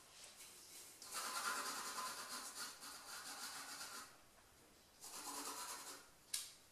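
Graphite pencil scratching on drawing paper in sketching strokes: one spell of about three seconds starting a second in, and a shorter one around five seconds in. A brief sharp click near the end.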